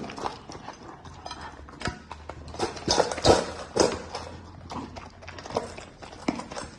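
A dog eating: irregular crunching and clacking knocks at uneven intervals, a few louder around the middle.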